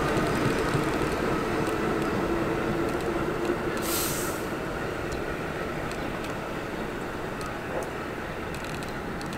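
Pullman Standard R46 subway train pulling away, its running noise slowly fading as it recedes, with a short hiss about four seconds in.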